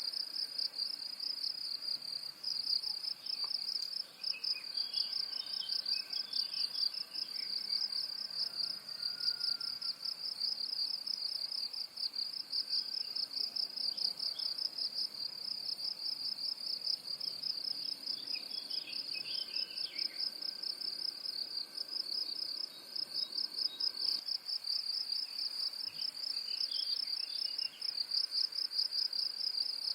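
A continuous, high-pitched insect trill, rapidly pulsing and unbroken. Faint bird twitters come in about three times behind it.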